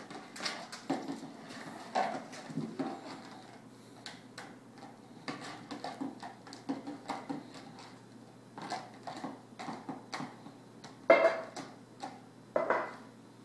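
Golden retriever puppy knocking, pushing and chewing a clear plastic bowl on a hard tiled floor: irregular clatters and scrapes, with the two loudest knocks about a second and a half apart near the end.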